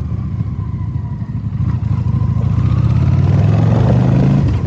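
Honda Shadow 750's V-twin engine running under way, its pitch rising as it pulls and dropping briefly near the end. The irregular running is what the rider puts down to spark leaking from a spark plug cap.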